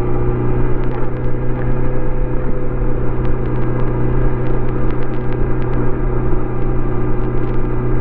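Stock 2018 Kawasaki Z900RS inline-four engine and exhaust under way, holding a steady engine note with no shifts or big revs.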